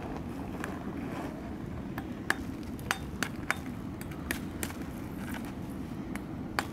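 Lumps of solid sulphur knocking and clinking as they are handled, a few scattered sharp knocks over a steady low rumble.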